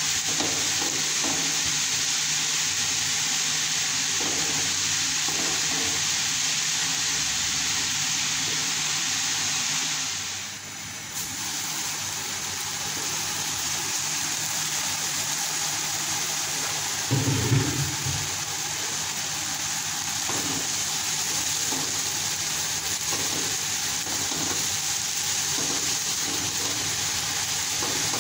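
Chopped greens sizzling as they fry in oil in a non-stick pot, stirred and scraped with a spatula, cooking off their water. A steady hiss that dips briefly about ten seconds in, with a short low knock about seventeen seconds in.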